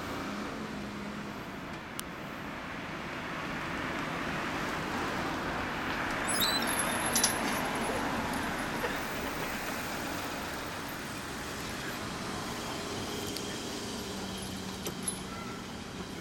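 Road traffic: vehicle noise swells to a peak and fades away, with a few light clicks about six to seven seconds in.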